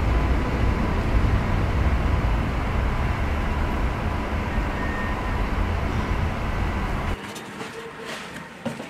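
A steady, loud low rumbling noise with a faint thin tone in it, which drops away abruptly about seven seconds in.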